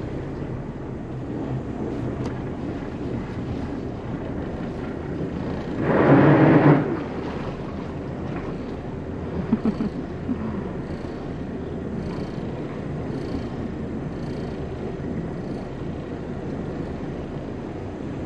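Carver 504 motor yacht's inboard engines running steadily at low speed, with wind and water noise. About six seconds in, a loud sound about a second long stands out above the engines.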